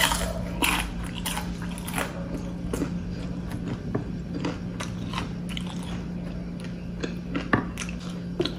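Close-miked biting and chewing of fried calamari (battered squid rings): a string of short crunches and mouth clicks. She herself calls the calamari overcooked and rather tough.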